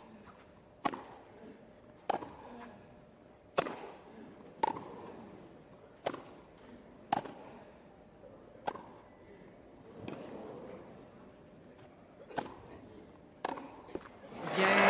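Tennis rally: tennis balls struck by rackets in a sharp back-and-forth, about ten hits a second or so apart, with a couple of quicker hits near the end. Crowd applause breaks out as the point ends.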